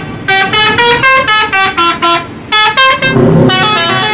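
Bus's musical multi-tone horn (a 'telolet' horn) playing a quick tune of short notes, about four a second. The tune breaks off briefly about two seconds in, then a burst of noise comes before the notes pick up again.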